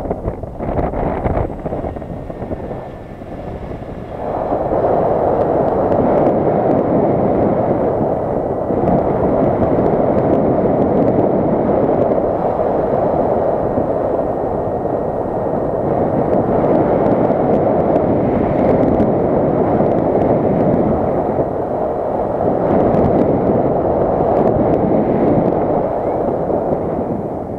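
Wind buffeting the microphone, a dense rushing noise that grows louder about four seconds in.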